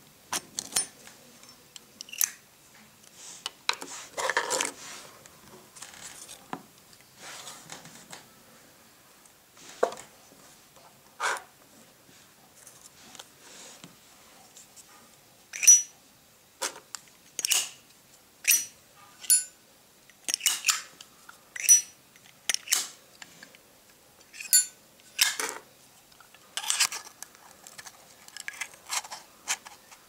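Zippo-style windproof lighters being handled: metal cases rubbing and knocking in the fingers, then from about halfway the hinged lids flipped open and snapped shut over and over, a string of sharp metallic clicks about a second apart.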